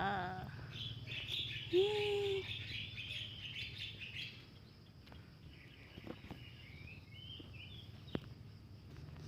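Small birds chirping and twittering in the background, densest in the first few seconds with a few more chirps midway, over a steady low hum, with a few faint clicks.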